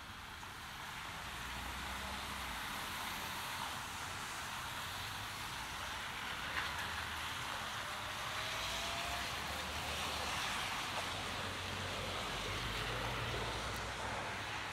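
Steady hiss of rain with the low rumble of road traffic beneath it, growing louder over the first couple of seconds and then holding.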